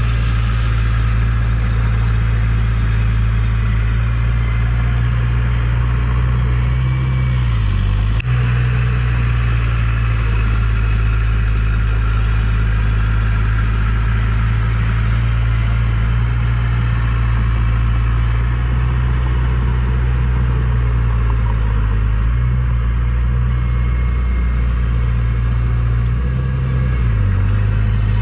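Heavy diesel earthmoving equipment engine running steadily, its low pitch dipping briefly a few times as the load changes.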